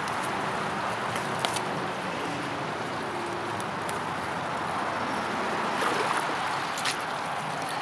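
Shallow brook running steadily in good flow after heavy rain, an even rush of water, with a few light clicks about a second and a half in and near the end.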